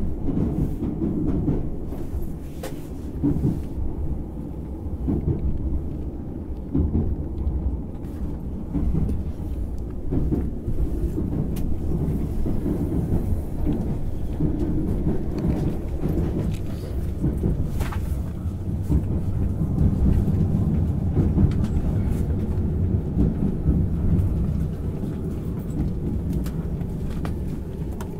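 Running noise heard inside the passenger cabin of a JR Hokkaido 789 series 1000 electric train: a steady low rumble from wheels and track, with a few faint clicks, as the train comes in to its station stop.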